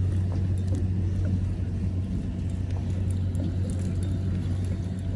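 Boat engine running steadily, an even low hum.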